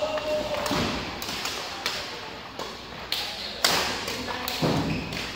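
Badminton rally: a quick string of sharp smacks as rackets strike the shuttlecock back and forth, mixed with thuds of players' feet on the court, with one hit about three and a half seconds in standing out as the loudest.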